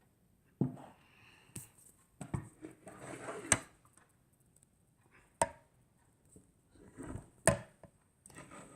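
Handling noise from a tablet being shifted about and set against a Lego model: scattered sharp clicks and knocks, about six of them, with soft rustling between.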